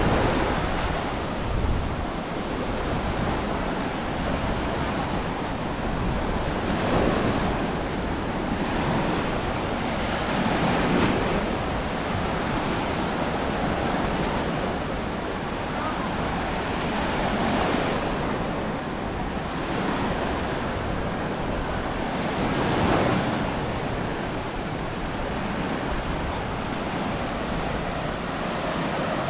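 Sea waves breaking and washing up on a beach, a steady rush that swells every several seconds, with wind buffeting the microphone.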